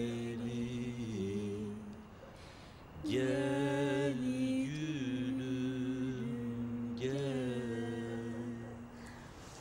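Slow Turkish song sung with long held, wavering notes; a short lull is followed by new phrases about three and seven seconds in.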